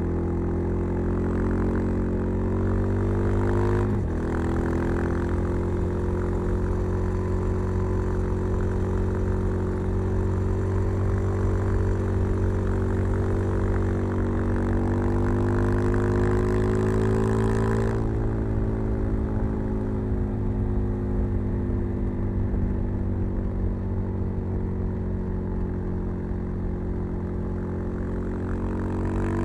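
Suzuki DR-Z 400 supermoto's single-cylinder engine, breathing through a Keihin FCR 39 carburettor and a LeoVince V3 silencer with its dB-killer fitted, running under steady throttle as the bike rides along. The pitch climbs slowly, drops sharply about four seconds in as at a gear change, and climbs again. It falls back about two-thirds of the way through, then picks up again near the end.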